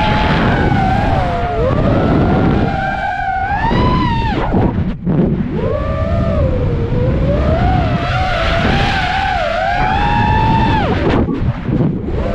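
FPV freestyle quadcopter's brushless motors whining, the pitch rising and falling with throttle over a rush of wind. Twice the whine drops away sharply and comes back, about four and a half seconds in and again near eleven seconds: throttle chops for flips or dives.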